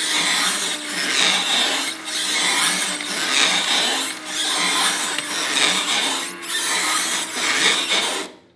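Ativa paper shredder running and shredding a sheet of paper: a loud grinding racket over a wavering motor hum, which stops shortly before the end. This is the horrible racket of a shredder close to jamming, its cutter teeth clogged with paper and some of them bent.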